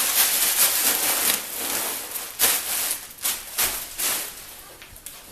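Plastic wrapping crinkling and rustling as it is pulled out and handled, with several sharper crackles; it dies down near the end.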